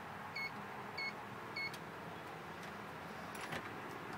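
Emtek 1000 punchcode deadbolt keypad beeping as its buttons are pressed to lock it: three short high beeps about half a second apart. A few faint clicks follow near the end.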